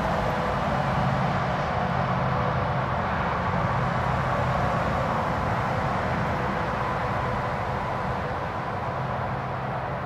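Steady mechanical drone with a low hum and a few held tones, like engine or road noise, easing off slightly toward the end.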